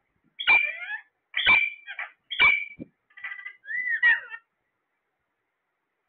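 Caged Alexandrine parakeets calling: three loud, short calls about a second apart, then softer chattering notes and a rising-then-falling whistle about three to four seconds in.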